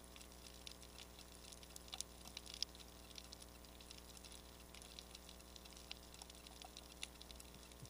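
Faint underwater ambience over a rocky reef: scattered, irregular clicks and crackles, a few a second, over a low steady hum.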